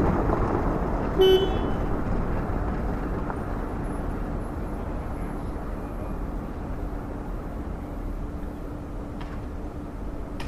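Street traffic: a vehicle passing and fading away, with one short car horn toot about a second in, then quieter town-street ambience with a steady low hum.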